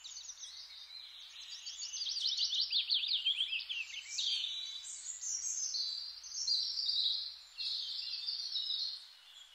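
Birdsong: dense runs of quick, high chirps and trills going on almost without a break, fading out near the end.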